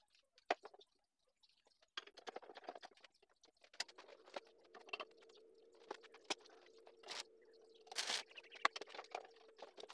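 Stick-welding arc crackling and spitting in irregular bursts over a steady hum, with one louder hissing burst of arc about eight seconds in. A single sharp click comes about half a second in.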